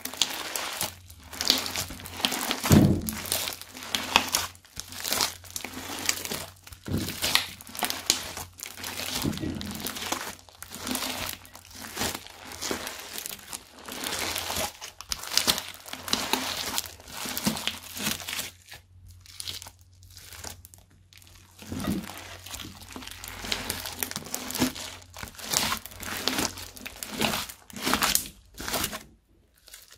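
Hands kneading, squeezing and folding a thick mass of pink slime in a glass bowl: an irregular run of wet squishes and crackles, with an occasional dull thump as the slime is pressed down.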